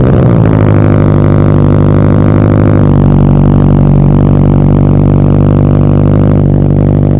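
2022 Toyota GR86's flat-four boxer engine with a JDL single-exit exhaust, fast-idling just after a cold start: a loud, deep, steady exhaust drone.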